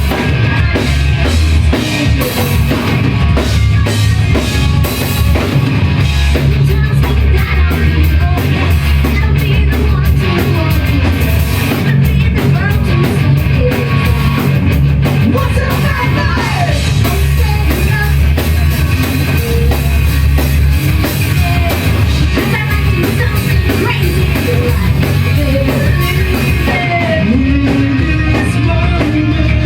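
Live rock band playing loud: drum kit, distorted guitars and bass, with a singer's voice over the top.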